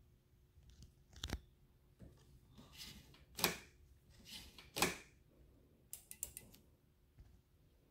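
Handling noises from a motorcycle's right handlebar controls, with no engine or starter running: a sharp click, two short rasping scrapes a little over a second apart, then a quick run of small clicks.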